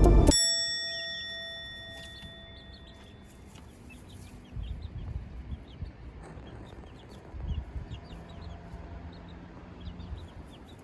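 Month-old chicks peeping: many short, faint rising chirps. Two low rumbles come about halfway through and again later, and a music chord rings out and fades during the first couple of seconds.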